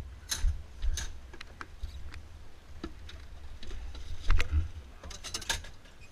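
Clicks, knocks and rustling of a driver climbing into and settling in a go-kart seat, heard close on a head-mounted camera, over a low rumble on the microphone. The loudest knock comes about four seconds in, and a quick run of clicks comes near the end. The kart's engine is not running.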